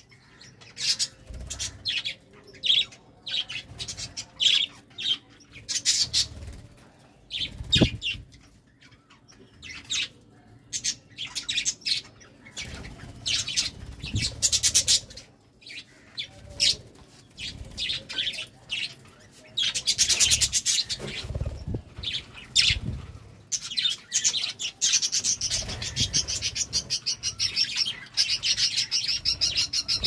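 A flock of budgerigars chirping and chattering, with wing flutters as birds hop and land between perches. The chatter grows denser and more continuous about two-thirds of the way in.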